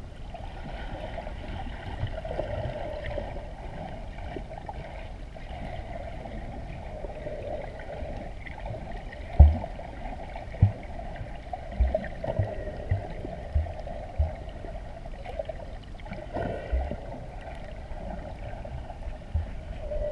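Muffled underwater wash of water, recorded from inside a camera's waterproof housing. About halfway through, a series of short low thumps sets in, the loudest first and then about one every half to one second.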